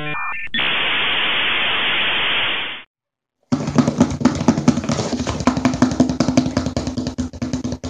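A glitch-effect intro: a brief run of stacked electronic beeping tones, then a burst of static hiss that cuts off suddenly. After about half a second of silence comes a busy stretch of irregular clicks and rattles over a steady low tone.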